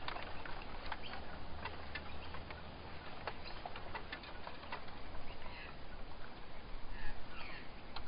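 Forest ambience: a few short bird chirps, including a quick run of falling chirps near the end, over a steady hiss scattered with many small clicks and ticks.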